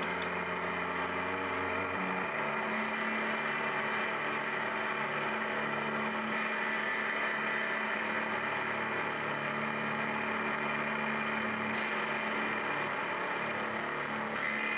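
Ambient drone music: layers of long held tones at a steady level, moving to new notes about two seconds in, again around six seconds, and once more near the end.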